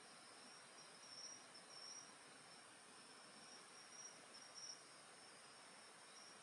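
Faint chorus of night insects: crickets trilling in short repeated pulses over a steady high-pitched drone.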